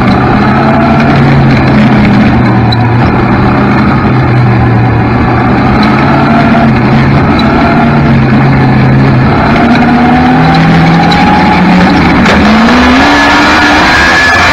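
Onboard sound of a restrictor micro sprint car's 600cc motorcycle engine running steadily in a pack of other micro sprints, their engine notes overlapping. Near the end the pitch climbs as the car accelerates.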